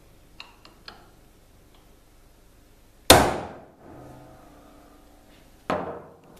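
Hammer striking a steel punch held against a forged knife blank: a few small clicks, then two sharp metallic strikes about two and a half seconds apart, each ringing briefly. The first strike is the louder.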